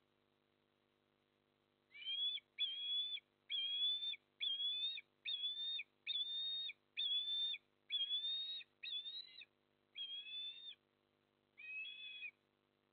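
Osprey calling: a series of about a dozen clear whistled notes, each about half a second long and coming about once a second, starting about two seconds in, with a last note after a short pause near the end.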